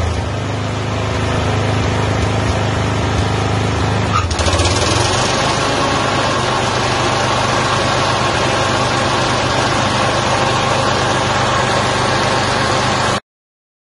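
Toro TimeMaster mower's single-cylinder engine running on a test run after its head gasket replacement and valve adjustment. About four seconds in the sound changes and takes on more high-pitched noise. It cuts off abruptly near the end.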